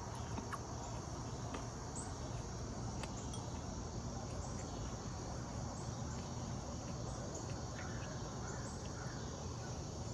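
Steady insect chorus, a constant high-pitched chirring, with a few faint clicks.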